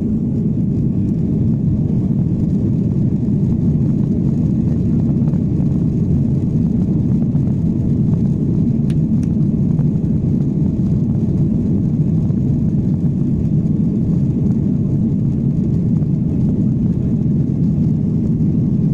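Steady rumble of a Boeing 737's jet engines heard inside the passenger cabin as the airliner taxis. It grows a little louder about a second in, then holds even.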